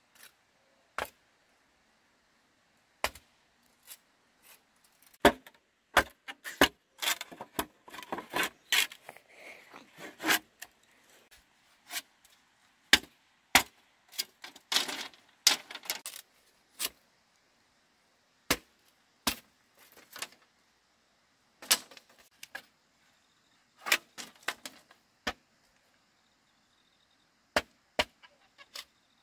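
Sharp knocks and clacks of bamboo being worked with hand tools: mostly single strikes a second or more apart, with quicker runs of strikes about a quarter of the way in and again near the middle.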